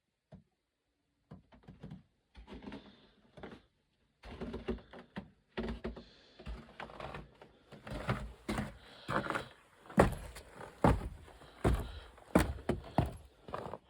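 A series of irregular knocks and thumps, sparse at first and coming thick and fast from about four seconds in.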